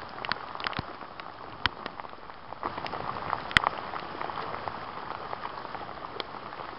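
Rain falling on a lake: a steady hiss of rainfall with scattered sharp taps of single drops.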